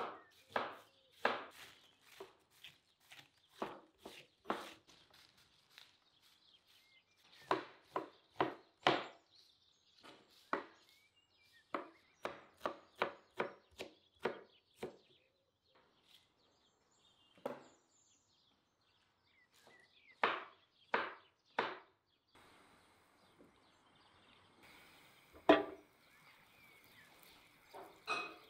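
Kitchen knife chopping cabbage and onion on wooden cutting boards: irregular runs of sharp strikes, several a second. The chopping stops some seconds before the end and gives way to a faint steady hiss, broken by one sharp knock that is the loudest sound.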